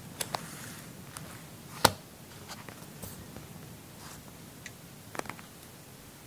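Handling noise: a few small taps and knocks, with one sharp click about two seconds in, over a faint steady hiss.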